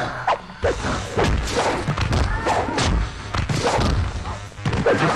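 Film fight sound effects: a rapid run of punch and kick impacts, a dozen or so sharp thuds and whacks in quick succession.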